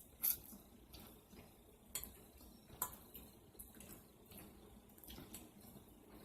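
Eating sounds from a close microphone: a few sharp, wet clicks of mouth and utensils while ramen noodles are eaten, faint overall.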